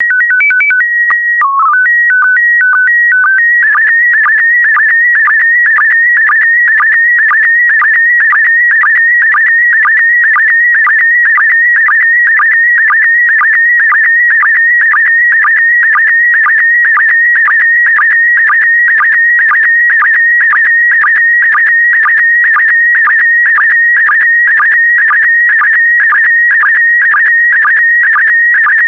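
Slow-scan television (SSTV) signal in PD120 mode. It opens with a few steady header tones stepping between pitches, then from about three and a half seconds in it becomes a continuous warbling tone broken by a short dip about twice a second, as the image is sent line by line.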